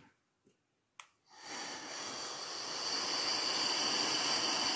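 A sharp click about a second in, then a steady breathy hiss, strongest in the treble, lasting about four seconds.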